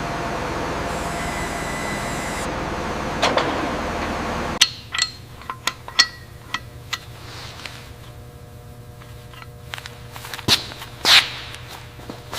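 A steady, loud mechanical rumble that cuts off abruptly about four and a half seconds in. After it come scattered sharp knocks and clanks over a faint hum, the loudest near the end.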